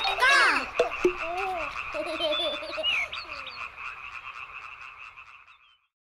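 A chorus of frogs croaking in a steady, rapid pulse that fades away to nothing near the end. It opens with a short, loud sung shout of '아꼼!'.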